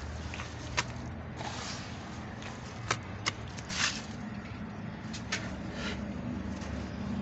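Compressed red sand crunching and crumbling: a few sharp cracks and short gritty crumbles at irregular intervals, the strongest about a second in and around the middle. A steady low hum runs underneath.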